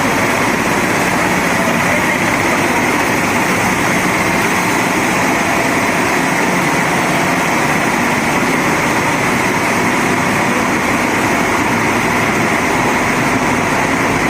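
Machinery of an automatic artificial-rice extrusion line running, a loud, steady, even machine noise with a hiss on top.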